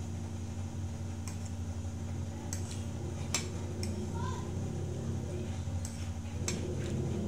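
A metal fork clinking against a ceramic plate while picking up noodles: about six sharp, separate clinks over a steady low hum.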